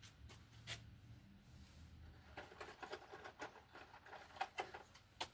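Faint clicks and rustling of stiff electrical wires and a wire connector being handled and pulled apart. There is a quick run of small clicks midway and a sharper click near the end.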